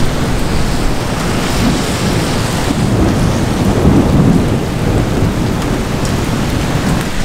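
Heavy rain and gusting wind of a severe thunderstorm, with a low rumble of thunder that swells and fades around the middle.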